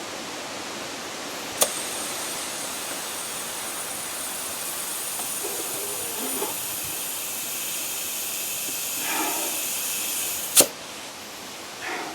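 Compressed air hissing steadily into a lawn tractor tire through the valve stem, its Schrader core removed, to seat the bead against the rim, for about nine seconds between a sharp click near the start and a louder one near the end.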